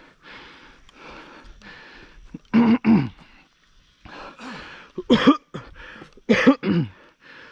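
A man panting hard and coughing, clearing his throat in loud hoarse bursts in three spells between quick breaths. He is winded from pedalling up a steep hill on a mountain bike.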